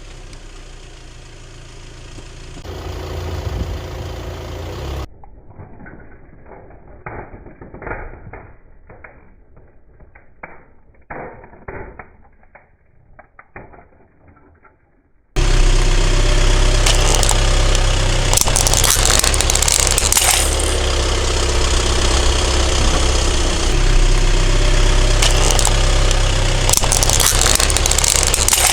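Car engine running close by, starting suddenly and loud about halfway through, with bursts of crackling and cracking as a tyre crushes objects. Before it comes a quieter, muffled stretch of separate clicks and cracks.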